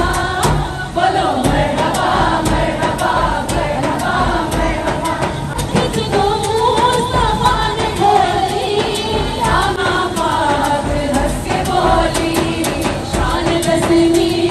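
A group of women singing a devotional naat together in unison, with sharp hand claps along with the singing.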